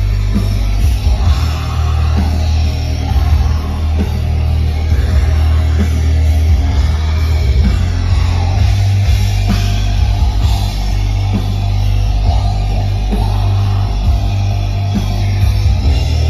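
Black metal band playing live: distorted electric guitars over heavy bass and steadily struck drums, loud and bass-heavy as heard from the crowd.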